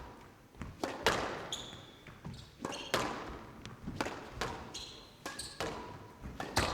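Squash rally: the ball is struck by rackets and smacks off the court walls about a dozen times at an uneven pace, each hit ringing briefly in the court. Court shoes squeak on the floor a few times between shots.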